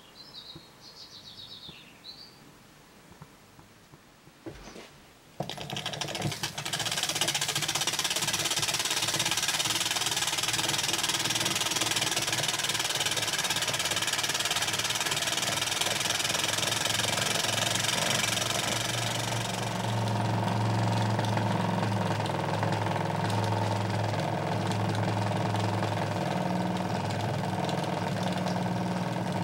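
Post-war Fyne Machinery toy steam engine starting to run about five seconds in: a loud steady hiss of steam with the fast chatter of its single cylinder. Around twenty seconds in the hiss falls away and a lower, steady running hum takes over.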